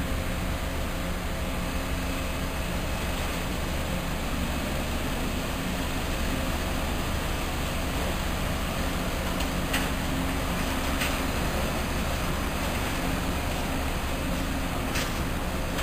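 Steady machinery drone from container cargo loading, a gantry crane lowering a container into a ship's hold, with a low hum underneath and three short sharp clicks in the second half.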